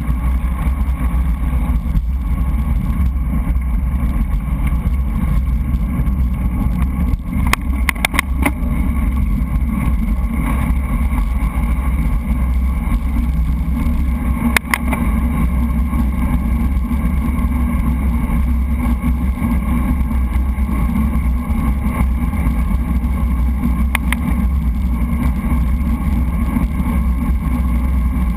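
Steady wind rumble over a bike-mounted action camera's microphone while riding a road bike, with road and tyre noise underneath. A few sharp knocks stand out, the strongest about halfway through.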